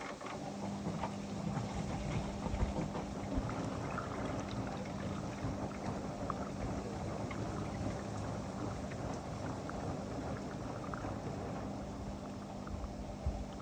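Whirlpool FSCR 10425 front-loading washing machine running, with water sloshing and small ticks as the drum turns. A steady low motor hum comes on right at the start.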